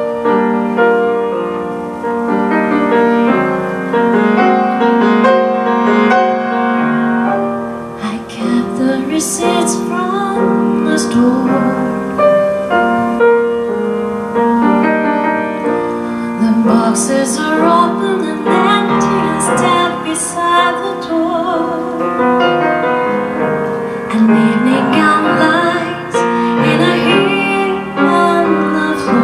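A grand piano playing a song accompaniment, with a woman's singing voice joining about eight seconds in and carrying on over the piano.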